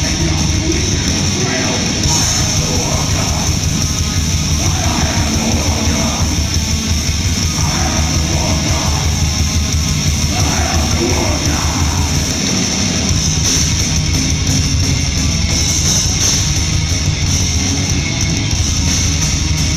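Extreme metal band playing live and loud: distorted electric guitars and drums, with shouted vocals over roughly the first half.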